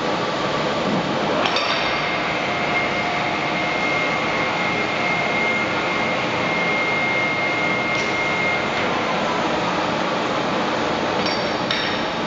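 Metallic knocks and clinks over a steady machine noise: one knock about a second in sets off a high ringing tone that holds for several seconds, then another knock, and two more close together near the end.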